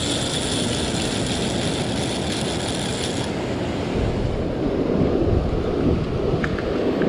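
A fast mechanical ratcheting whir that cuts off suddenly about three seconds in, over the low rush of surf and wind on the microphone.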